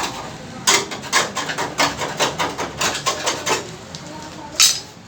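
Hand-tool work on a car body panel: a run of quick sharp knocks or scraping strokes, about three a second, then one louder stroke near the end.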